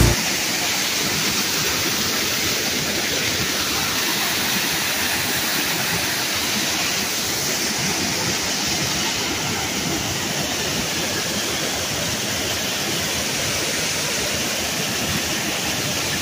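Creek water pouring over a rock ledge in a small waterfall: a steady rush with little low rumble.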